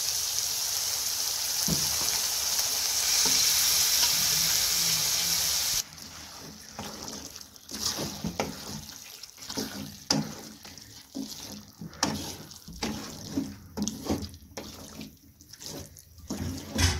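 Chicken frying in oil in a metal pan, a steady loud sizzle that cuts off abruptly about six seconds in. After that a wooden spatula stirs boiled spinach into the chicken, making irregular scraping strokes against the pan.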